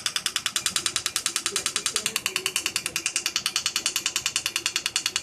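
Fotona Er:YAG laser firing a rapid, even train of clicks, about ten a second, as pulses are delivered to the soft palate in a snoring treatment.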